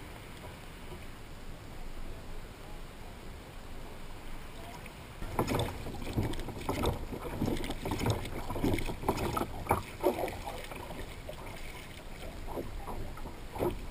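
Water lapping and slapping against the hull of a plastic sit-on-top kayak, over a steady wash of water and wind. It grows louder and more uneven about five seconds in, with many irregular splashes.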